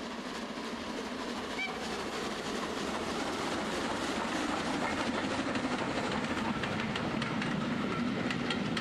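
A train running along the track, wheels clicking over the rail joints, growing steadily louder as it comes closer.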